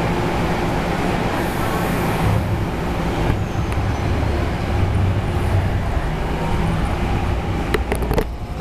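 MTR Kwun Tong Line C-Train electric multiple unit pulling out of an underground station and gathering speed: a steady low rumble of wheels on rail with a hum of steady tones from the traction equipment. A few sharp clicks near the end.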